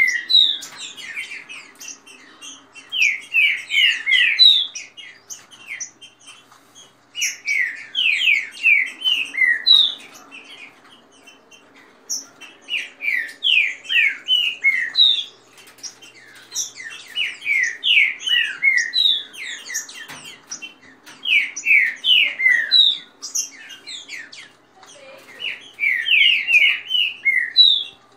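Green-winged saltators (trinca-ferro) singing, in short phrases of quick falling whistled notes that come again every few seconds.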